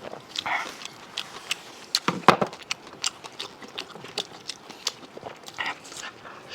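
A person eating: chewing and biting, with many short sharp clicks and smacks throughout and a louder bite a little over two seconds in.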